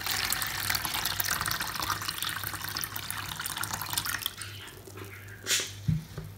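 Distilled water poured into a plastic fountain basin, splashing steadily and stopping a little past four seconds in. A short burst of noise and a low thump follow near the end.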